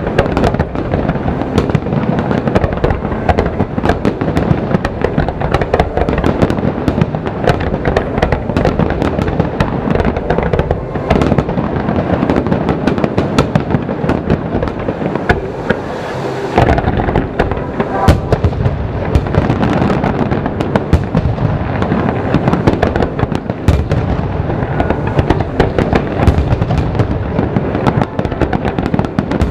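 Fireworks display going off in a dense, continuous barrage of booms and crackles, with a brief lull about halfway through.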